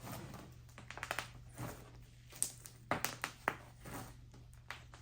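Fluffy slime being stretched and squeezed by hand into a bubble, giving faint, irregular sticky clicks and little pops.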